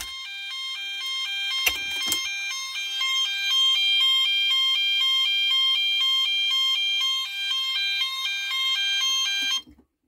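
Conventional fire alarm sounder going off, rapidly alternating between two pitches, with a steady high tone alongside. It was set off by testing a manual call point, and it cuts off suddenly near the end.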